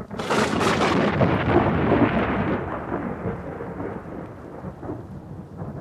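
A sudden crack of thunder that rolls on as a long rumble and slowly dies away.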